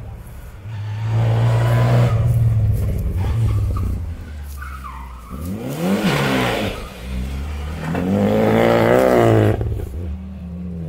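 Rally car engine revving hard on a special stage, its pitch swinging up and down through gear changes and lifts, loudest about two seconds in and again near the end.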